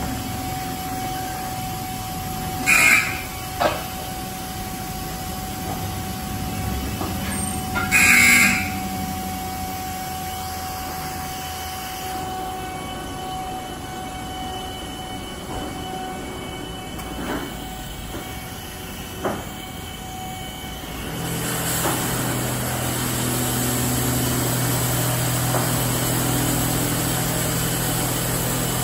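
D&S Quicksilver in-bay automatic car wash gantry running its wash cycle over a pickup truck: a steady mechanical hum with two short hissing bursts about 3 and 8 seconds in and a few faint clicks. About 21 seconds in, a louder, lower steady hum starts up as the machine changes stage.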